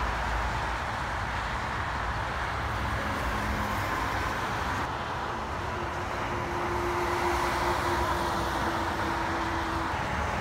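Steady interstate highway traffic: cars and trucks passing at speed with tyre and engine noise. In the second half a truck going by adds a steady hum and the noise swells slightly.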